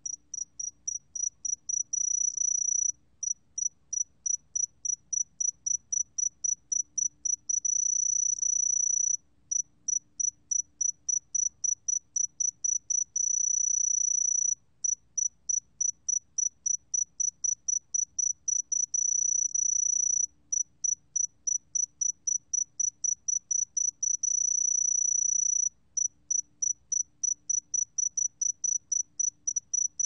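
Song of the 새금빛종다리, a small golden cricket, recorded at 20 °C. It is a clear, high, single-pitched chirping: runs of quick pulses, each ending in an unbroken trill of about a second and a half. The cycle repeats about every five to six seconds.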